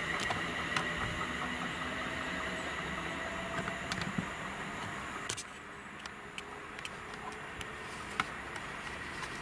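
A Class 350 Desiro electric multiple unit approaching along the line: a steady high whine over a low rumble that fades a little, dropping about five seconds in, with a few faint clicks.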